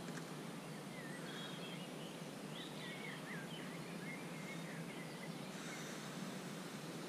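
Outdoor ambience: a steady background hiss with a series of short bird chirps and trills in the first few seconds.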